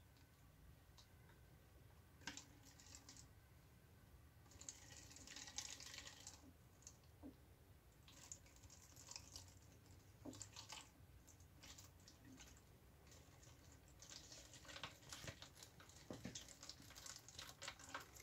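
Faint crinkling and scattered clicks of plastic bottles and cling film being handled as a funnel is fitted into a homemade bottle water clock, with brief crackly bursts around five seconds in and more often near the end.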